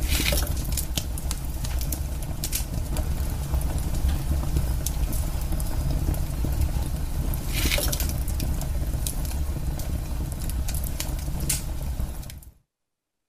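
Recorded crackling fire from the Ecotones Sound+Sleep machine's fireplace sound story: a steady low rumble with scattered sharp pops of burning logs, one louder pop about eight seconds in. It fades out about a second before the end.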